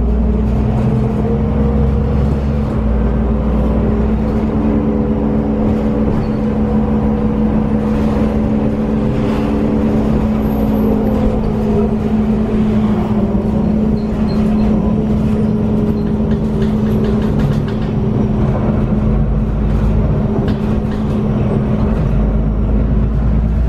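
Iveco Cursor 8 six-cylinder diesel engine and ZF automatic gearbox of a Heuliez GX 317 city bus, heard from inside the passenger cabin while the bus is under way at speed. A steady drone with whining tones that shift in pitch partway through.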